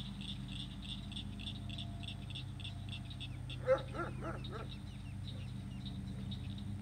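Ducklings peeping, short high calls repeated about four times a second, with a brief burst of lower, louder calls about halfway through and then scattered rising peeps.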